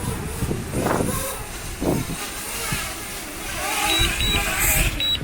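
Strong wind buffeting the microphone with a loud, uneven low rumble. Near the end come a few short, high electronic beeps.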